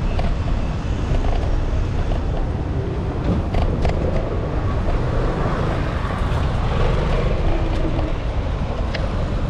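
City street traffic: cars moving along a narrow side street over a steady low rumble, with a few sharp clicks about four seconds in.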